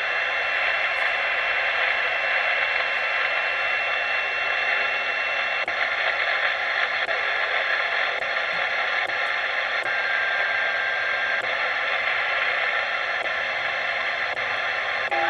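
Steady static hiss from the speaker of a Realistic Navaho TRC-490 CB radio, receiving on lower sideband while the channel knob is stepped down through empty channels. A faint steady whistle tone sits in the hiss for the first few seconds, and another briefly about ten seconds in.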